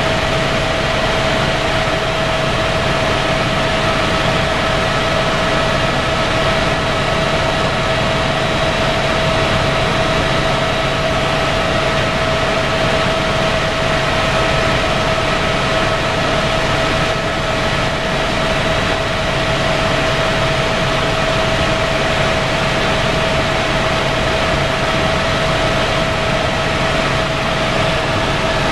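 Helicopter cabin noise in level flight: the turbine engine and rotors running loud and steady, with a constant high whine over a dense rush of noise.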